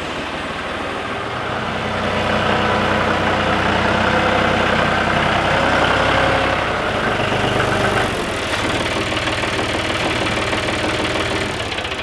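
John Deere 5065E tractor's diesel engine running steadily as the tractor is driven out of the shed, its note dropping a little about eight seconds in.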